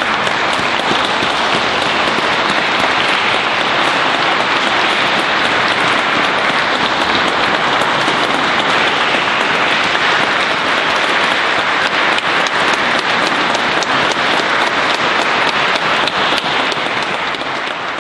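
A congregation applauding steadily in a church; the clapping fades away near the end.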